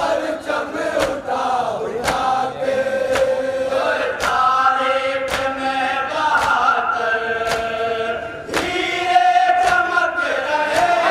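Men chanting a nauha (Muharram lament) led by a reciter on a microphone, with sharp chest-beating slaps (matam) in unison about once a second.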